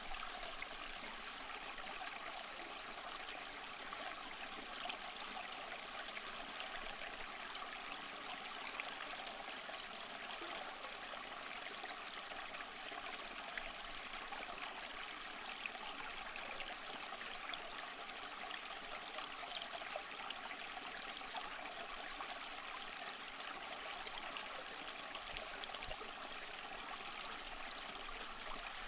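Stream water running and trickling steadily, an even splashing rush with fine high droplet sounds.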